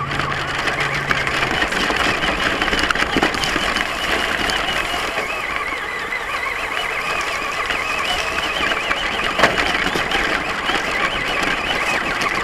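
Traxxas Stampede RC truck driving over dirt and grass, heard from the camera mounted on it: a wavering motor and gear whine over a steady rattle of the chassis, with a sharp knock about nine seconds in.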